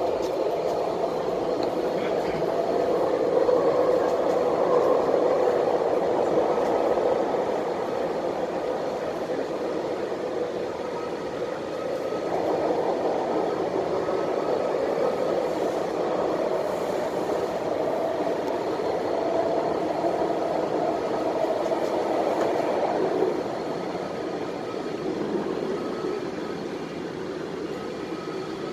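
Cabin running noise of an MTR West Rail Line C-Train in motion: a steady rumble of the train on the rails with a faint steady whine above it, growing louder a few seconds in and easing slightly near the end.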